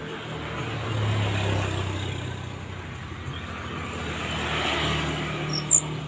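A motor vehicle passing on a nearby road: a steady low engine hum with tyre and road noise that swells about a second in and again near the end. A single short high chirp sounds just before the end.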